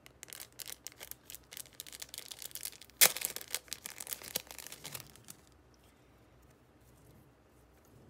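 Clear plastic packaging sleeve crinkling and crackling in the hands as a light stick strap is worked out of it, with the sharpest crackle about three seconds in; the crinkling stops after about five seconds.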